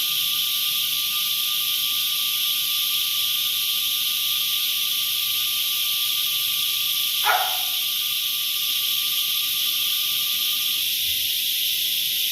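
Coyuyos (cicadas) singing in a steady, high-pitched drone. A fainter steady tone runs beneath it and stops near the end, and a brief falling call sounds once about seven seconds in.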